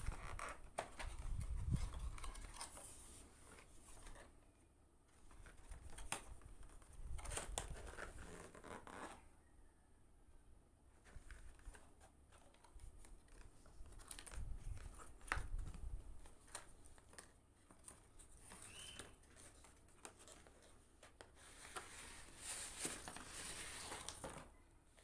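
Packaging being crinkled, torn and cut open, in irregular rustling stretches with scattered sharp clicks.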